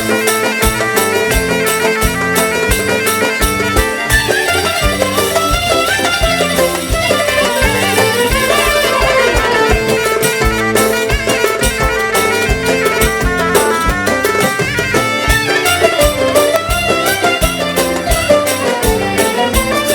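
Instrumental break in an Arabic folk song: a melody line that winds up and down over a steady percussion beat, with no singing.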